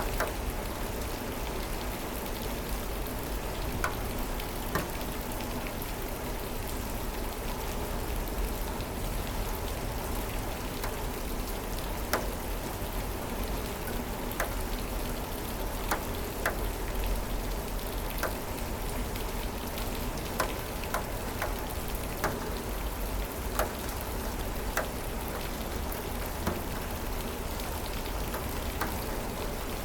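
Steady rain falling, with the clicks of single close drops scattered through it.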